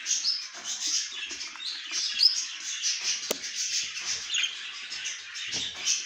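Many budgerigars chirping and chattering at once in quick, overlapping calls. A single sharp click a little past the middle and a few low knocks near the end.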